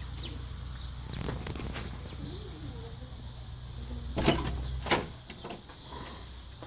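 Metal security screen door being knocked and rattled: a quick cluster of sharp knocks about four seconds in and another single knock about a second later.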